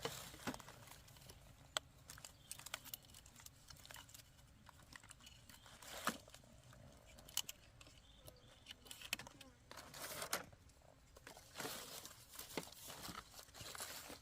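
Irregular rustling and crinkling, with scattered sharp clicks and snaps throughout.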